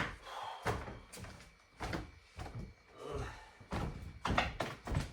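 Irregular knocks and clunks of hand tools and pipe fittings being handled during plumbing work, a dozen or so sharp hits at uneven spacing.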